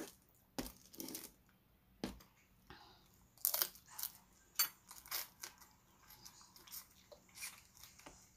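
Close-up eating sounds of a person picking apart cooked crab with her fingers and chewing it: irregular sharp clicks, crunches and wet smacks in short clusters.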